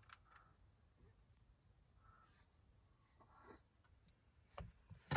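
Near silence: faint rustling with a few soft clicks, one a little sharper near the end.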